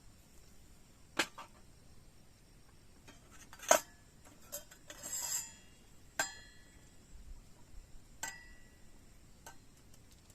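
Metal cookware and utensils clinking and knocking: about seven separate clinks, the loudest about four seconds in, followed by a short scrape. A couple of the clinks near the end leave a brief ring.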